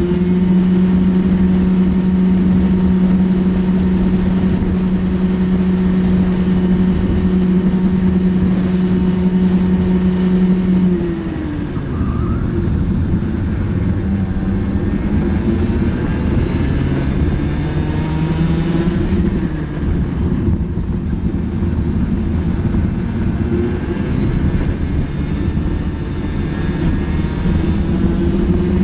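Two-stroke racing kart engine heard onboard, held at high revs down the straight for about ten seconds. Around eleven seconds in the revs fall as the driver lifts off for a corner, then climb again on the exit, with another dip and rise later on.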